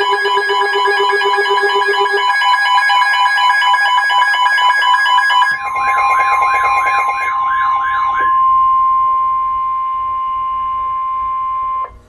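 Electronic weather-alert alarms: several overlapping beeping and pulsing tones, then a warbling siren-like alarm from about five and a half seconds in. Under the warble runs the steady NOAA Weather Radio 1050 Hz warning tone, which continues alone and cuts off abruptly just before the end. This tone signals that a warning message follows.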